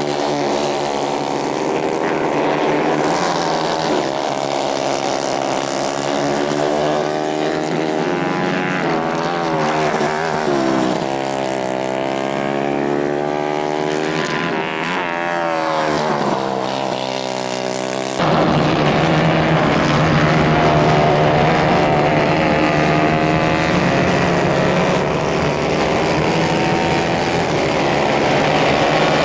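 Several racing kart engines on a dirt track, their pitch rising and falling as the karts accelerate and lift off through the corners. About two-thirds of the way through, the sound cuts abruptly to a steadier, lower engine sound.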